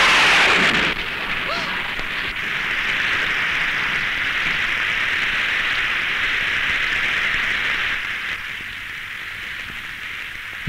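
Heavy rain falling as a steady hiss, easing somewhat about eight seconds in. In the first second a woman's crying is heard over it.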